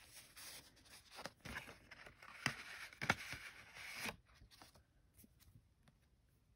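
Paper rustling and sliding as a pink paper envelope's flap is opened and a stack of photo prints is drawn out, with a few sharp crinkles. It grows quieter after about four seconds.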